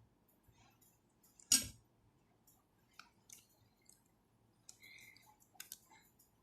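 Close-up eating sounds of a person eating vermicelli bone soup: quiet chewing and mouth clicks, with one louder sharp click or smack about one and a half seconds in and a few more scattered clicks after.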